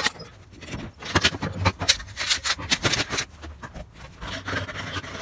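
Metal bar clamps clicking and clanking as they are handled and tightened on a glued-up wood panel: a run of irregular sharp, slightly ringing clicks.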